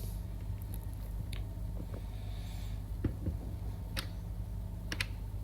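Plastic bottom cover of a ThinkPad T14 Gen 2 laptop being pressed shut along its edge, giving about five short, separate clicks as its clips snap into place, over a steady low hum.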